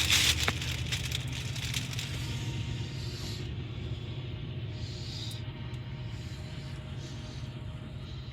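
Freight cars rolling past on the rails after a mid-train locomotive: a steady low rumble with rapid wheel clatter. A loud burst of clanking and rattling in the first second or so fades into the rumble.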